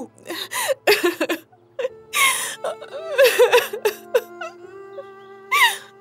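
A woman crying: whimpering sobs and catching breaths in short bursts, over background music with long held notes.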